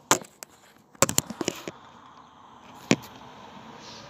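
Handling noise from a phone being held and propped up: sharp clicks and knocks against the microphone, a quick cluster of taps about a second in and one more loud knock near three seconds.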